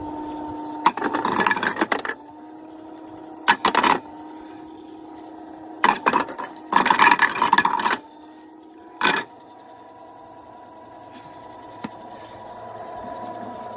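Small electric motor of a toy washing machine whirring steadily, broken by several loud bursts of rattling and clattering, the longest lasting about two seconds. The whir shifts slightly higher about nine seconds in.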